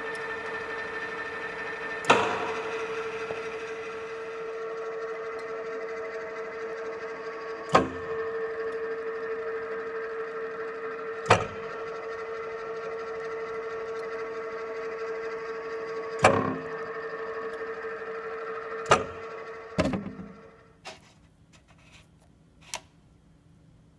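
HU 40 G-4 pillar drill running with a steady humming whine, broken by six sharp metallic clunks. The machine then stops about twenty seconds in and runs down, leaving a few faint ticks.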